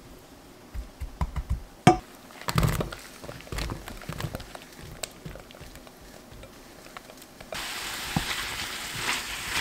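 Silicone spatula scraping and tapping in a stainless-steel pan, with a clatter about two and a half seconds in as the salted zucchini pieces go in and are stirred. From about seven and a half seconds in, a steady sizzle starts as the zucchini fries in butter and garlic.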